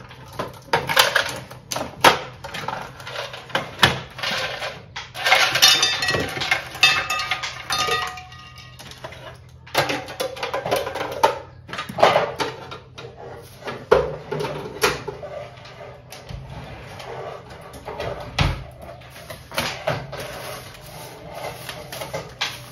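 Hands handling packaging on a kitchen counter: plastic and paper flower wrapping crinkling and rustling, with irregular clicks and knocks of a plastic container and other items being picked up and set down.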